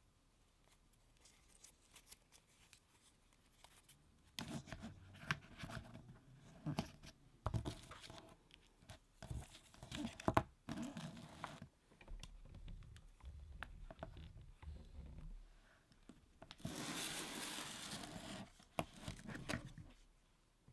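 Stylus pen packaging being handled: a cardboard box with a foam insert, a cable and a paper manual. Small knocks, clicks and short rustles begin about four seconds in, and a steady rustle of packaging lasts about two seconds near the end.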